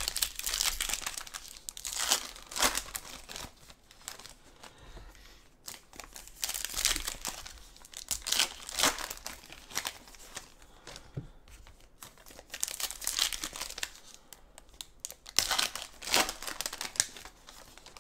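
Trading-card pack wrappers crinkling and tearing as packs are ripped open and handled by hand, in irregular bursts.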